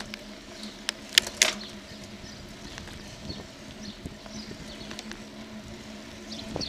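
Bicycle ride heard through a bike-mounted action camera: a steady low hum with road noise, and sharp clicks and knocks from the bike and camera mount over bumps, the loudest a little over a second in. Small birds chirp faintly now and then.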